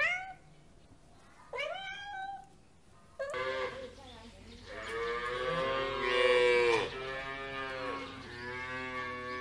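A domestic cat meows twice, once right at the start and again about a second and a half in, each meow rising in pitch. About three seconds in, a cow starts mooing: a long, loud low moo in the middle, then another long moo near the end.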